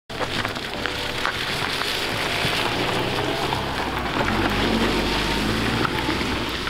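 VW Polo 1.4 petrol hatchback driving past on a loose dirt and gravel track: steady engine running under a haze of tyre and road noise, with the engine note rising about two-thirds of the way through as the car pulls away.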